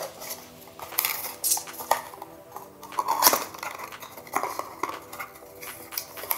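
Cardboard packaging being handled: a small cardboard inner box is slid out of a watch box and turned over in the hands, making a string of scrapes, rubs and light knocks.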